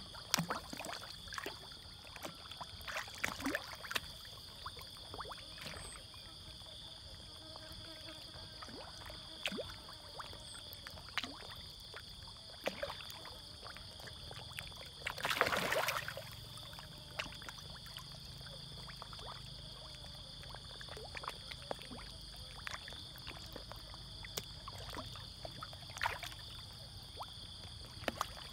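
Fish feeding at the surface of a pond, with scattered small splashes and plops and one louder splash about halfway through.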